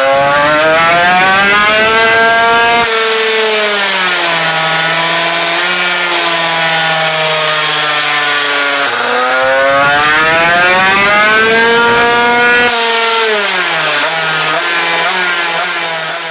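A 188 cc twin-cylinder scooter engine on a chassis dynamometer makes two full-throttle pulls with its variator locked. In each pull the engine note climbs steadily in pitch for about three seconds, then the throttle shuts and the revs fall. This is a check of the engine alone, which the tuner concluded was not working properly.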